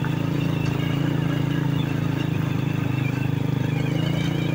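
Motorcycle engine running steadily with a fast, even pulse while riding.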